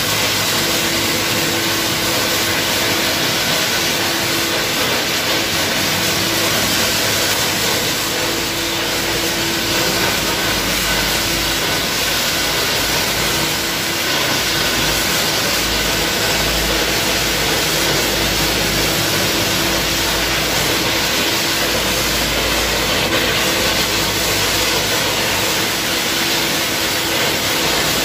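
Refractory gunning: compressed air blowing the dry refractory mix through the hose and out of the nozzle onto the wall, a steady loud hiss with a steady machine hum underneath.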